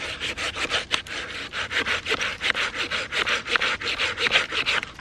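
Small folding pruning saw cutting through a thick hardwood limb by hand, with quick, even rasping back-and-forth strokes, several a second, stopping just at the end.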